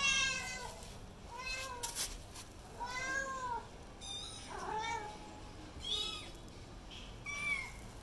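Kitten meowing repeatedly: about six short meows, each rising and then falling in pitch, the first and loudest right at the start.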